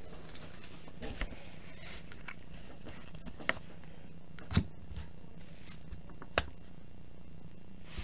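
Faint handling noise from a stack of trading cards being sorted by hand, with a few light, sharp clicks and taps spread through as cards slide and knock together.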